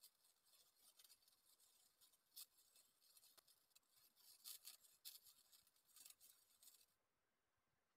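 Faint crackle and sizzle of an electric welding arc laying a bead on steel angle, irregular and spitting, cutting off about seven seconds in when the arc is broken.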